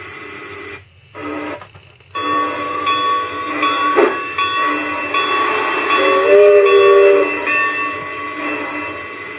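Sound module of a PIKO G-scale Pennsylvania Railroad model steam locomotive playing through its speaker: steady locomotive sounds that drop out twice near the start, then a chime whistle held for about a second past the middle.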